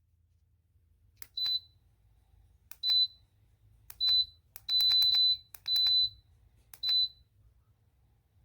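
Electronic beeps from a Sunnote ceramic space heater's controls as its buttons are pressed: six high single-tone beeps about a second apart, each led by a small click, the fourth and fifth held a little longer.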